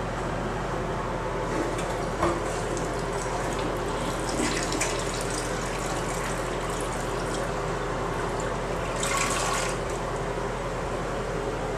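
Toilet flushing, water rushing and swirling as it carries a wad of toilet paper down the drain, with a click a couple of seconds in and a louder rush about nine seconds in as the bowl empties. A steady hum sits underneath.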